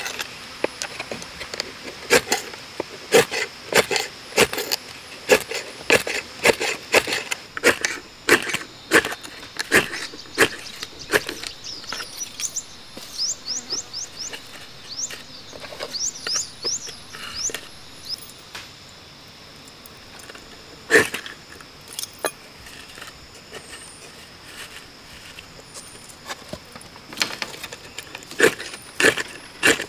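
Knife blade scraping thin shavings off a split bamboo stalk in quick, irregular strokes, thinning out in the middle with one sharp stroke before a fast run of strokes near the end. A run of faint high chirps comes about halfway through.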